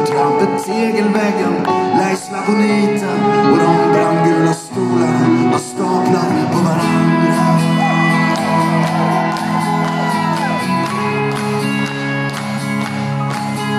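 Live band music in a concert venue, led by an acoustic guitar, heard from the audience with voices shouting and singing along.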